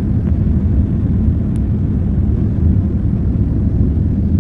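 Steady low rumble of engine and airflow noise inside a Boeing 787's passenger cabin as the airliner climbs after takeoff.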